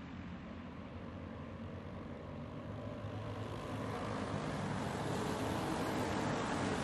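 A pack of dirt-oval racing karts running together, their engines making a steady drone that grows louder from about four seconds in as the pack comes closer.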